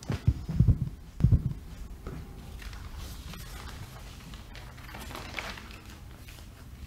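A few dull, muffled low thumps in the first second and a half, then a steady low hum of room tone.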